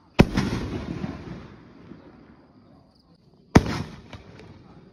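Consumer canister firework shells. One shell bursts overhead with a sharp bang just after the start, trailing off over about a second and a half. About three and a half seconds in, the next shell is fired from its mortar tube with another sharp bang, followed by a few faint crackles as it climbs.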